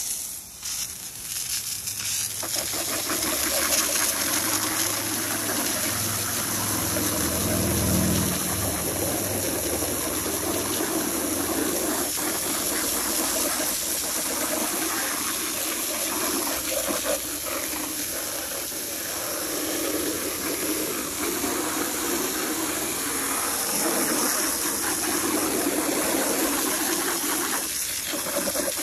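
A garden hose on a high-pressure nozzle sprays a steady jet of water onto a plastic engine cover and the asphalt around it, washing off the soap. The jet drops for a moment just after the start and then runs on steadily.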